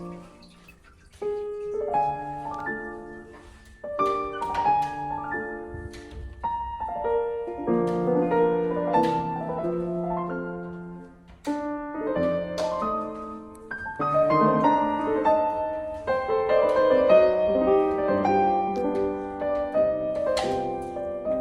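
Piano music: notes struck in flowing phrases and chords, each ringing and fading.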